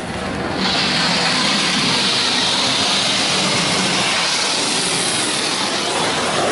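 Washworld Water Wizard 2.0 touchless car wash spraying its spot-free rinse water onto the car's roof and glass, heard from inside the cabin as a loud hiss that builds within the first second, then holds steady.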